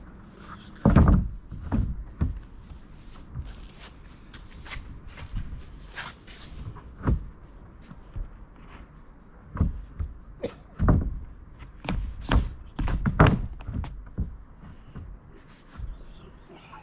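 Wooden boards being laid on a flat shed roof: irregular thunks and knocks as the sheets are set down and shifted into place, with the loudest knock about a second in and a cluster of knocks later on.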